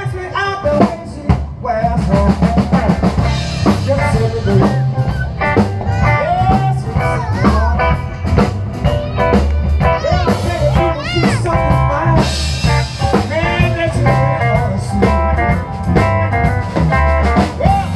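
Background blues music with a drum kit and guitar playing a steady beat.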